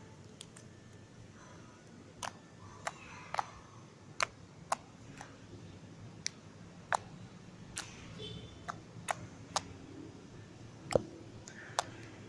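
Slime being worked by hand, giving off sharp, irregular clicks and pops as air pockets burst, about one or two a second.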